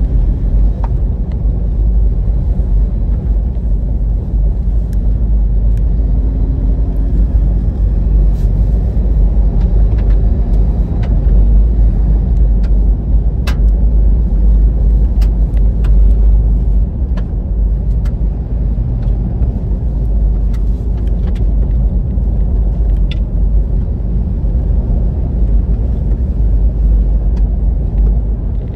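Cabin sound of a 2018 Toyota 4Runner Off Road driving fast on a gravel road: a steady, loud, low rumble of tyres and drivetrain, with scattered sharp clicks.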